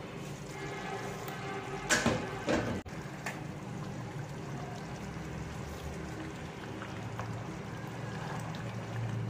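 Chicken curry simmering in a pot and being stirred with a spoon through the liquid gravy. Two loud short clatters about two seconds in as the glass lid comes off.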